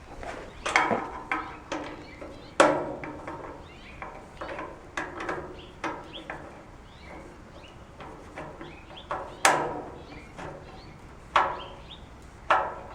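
Sharp metal knocks and clanks on the sheet-metal body of a barbecue grill being assembled, about five loud ones, each ringing briefly, with lighter clicks and taps between, as screws are driven in to join the grill to its stand.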